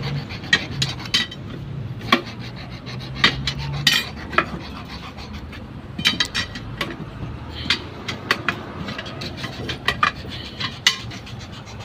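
Steel tyre lever clinking and scraping against a steel wheel rim as a tyre bead is prised over the rim by hand: irregular sharp metal clinks, a few every second.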